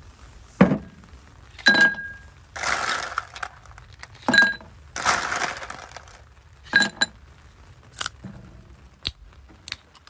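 Bullet-shaped ice cubes dropped into a glass tumbler: a string of sharp clinks with a ringing note. Twice there is a longer rattle as a handful of cubes tumbles in.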